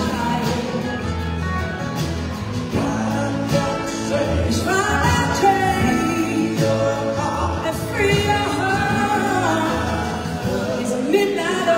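Live soul-blues band playing, with a woman singing lead over electric guitar and the band.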